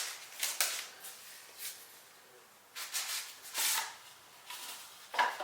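Packaging being handled and opened: a string of short, irregular rustles and scrapes.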